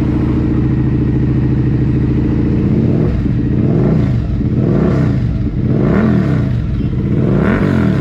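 Suzuki SV650's 645 cc V-twin engine idling steadily, then blipped by the throttle about four times, each rev rising and falling quickly.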